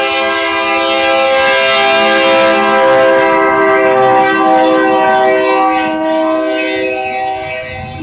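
Kansas City Southern de México freight locomotive's air horn blowing a long chord of several notes as the train passes close by. The chord drops in pitch about halfway through as the locomotive goes past, over the rumble of the train.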